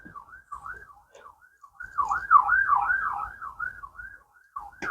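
Warbling alarm tone, a single pitch sweeping up and down about two to three times a second, fading and swelling in strength.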